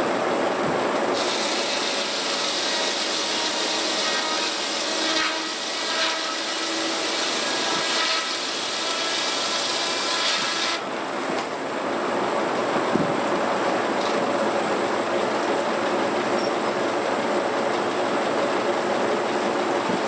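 Antique circular sawmill running steadily, its power unit and big spinning blade making a constant din. From about a second in until about eleven seconds the blade cuts through a log on the carriage, adding a harsher, high-pitched whine over the running noise, then the mill runs on without cutting.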